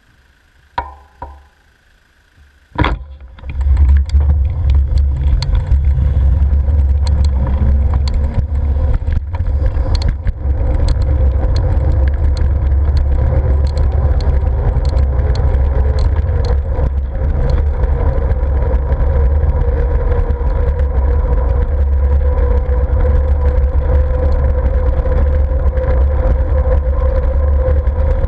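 Wind rumbling steadily over a helmet- or bike-mounted action-camera microphone while cycling, with road noise, a steady hum and scattered ticks. It starts after a short beep and a sharp knock about three seconds in.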